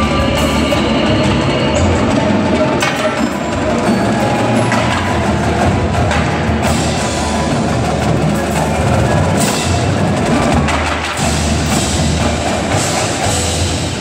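Indoor marching percussion ensemble playing: marching drums struck in quick sharp strokes over marimbas, vibraphones and other mallet keyboards, with a steady low bass underneath.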